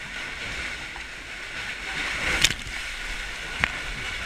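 Sea water sloshing and surging against rock in a sea cave, a steady rushing wash. Two short sharp clicks come about two and a half and three and a half seconds in.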